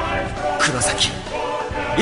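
Music.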